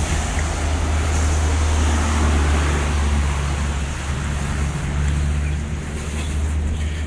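Steady low wind rumble on the microphone of a moving camera, over an even hiss of road traffic on a wet road.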